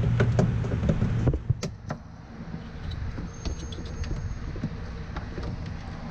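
A low steady hum stops about a second in, leaving scattered light clicks and taps of hands handling the fog light wiring harness and plastic connectors.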